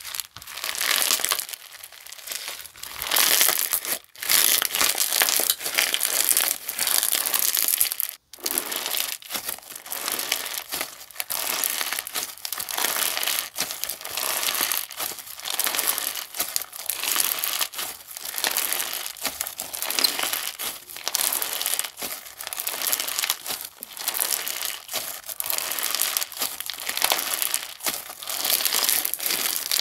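Clear-base slime squeezed, stretched and pressed by hand, giving a dense, continuous crackling and popping, broken by two very brief pauses about four and eight seconds in.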